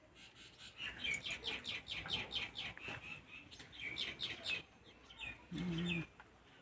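A small bird chirping in a fast run of short, high, down-slurred notes, about six a second, for a few seconds, then a couple of scattered chirps. Near the end, a brief, louder low-pitched call.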